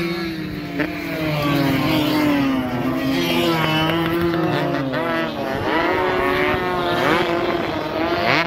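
Several two-stroke 140 cc racing motorcycles running hard through a corner. Their engine notes overlap and keep rising and falling in pitch as the riders work the throttle.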